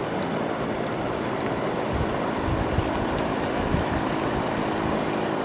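Steady rush of flowing river water, an even hiss with no break.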